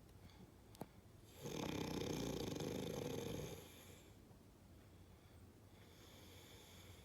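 Snoring: one long snore starting about a second and a half in and lasting about two seconds, followed by quieter breathing.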